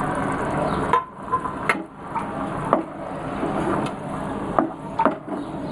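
A spatula knocking and scraping against a non-stick frying pan as chapati strips are mixed into sauce: a handful of sharp clicks, unevenly spaced. A steady hiss stops about a second in.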